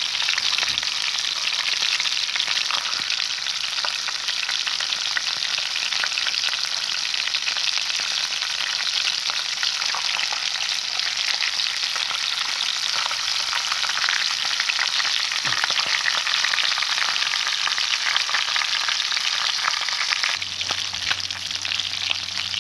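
Whole perch frying in hot oil in a frying pan: a steady sizzle with fine crackling.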